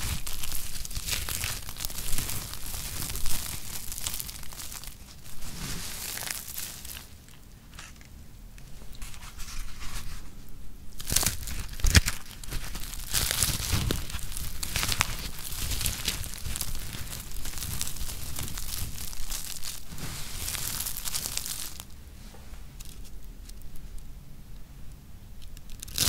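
Dry, crispy soap curls rolled into a rosette being squeezed and crushed in the hands, giving irregular crackling and crumpling, with a couple of quieter stretches between squeezes.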